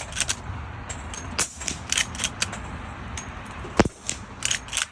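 Suppressed shots from a .357 carbine firing subsonic .38 Special rounds through a GSL Stealth titanium suppressor. One shot comes at the start and another about four seconds in, each a short sharp crack, with lighter metallic clicks of the action being worked between them.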